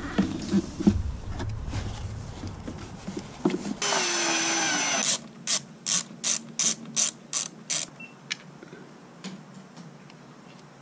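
Ratchet wrench tightening the battery's positive terminal clamp. After some knocking and clatter of the cable terminal on the post, there is a short whirring run about four seconds in. It is followed by a string of about eight sharp clicks, roughly three a second.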